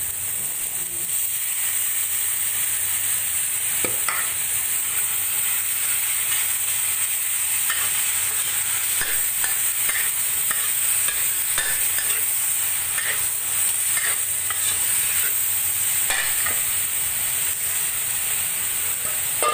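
Chicken breast pieces sizzling steadily in hot oil in a metal wok, with a metal spatula scraping and clicking against the pan now and then as they are stirred.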